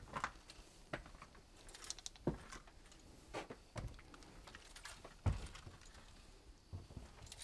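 Footsteps climbing old wooden stairs: irregular thumps and knocks, the loudest about five seconds in, with lighter clicks between.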